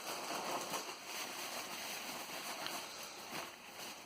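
Handling noise from a small diecast model car being rubbed and wiped clean by hand: a steady, uneven scratchy rustle with a couple of light clicks near the end.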